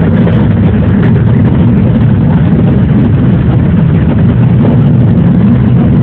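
A JR 113 series electric train running at speed, heard from inside behind the driver's cab: a loud, steady rumble of motors and wheels on the rails.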